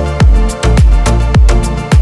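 Electronic background music with a steady beat: a deep kick drum whose pitch drops on each stroke, about two beats a second, under sustained synth chords.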